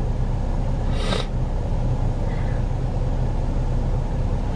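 Steady low rumble inside a parked car, with one short sniffle about a second in as a woman starts to cry.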